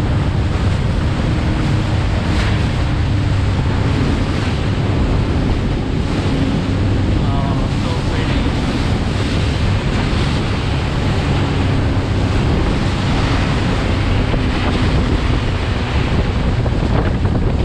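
Wind buffeting the microphone over the rush of churning river rapids as a motorboat speeds across them, with a low steady engine drone underneath.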